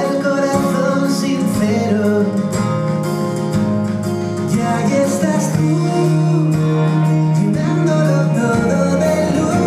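A song with singing over a steady beat, the music the children are dancing to.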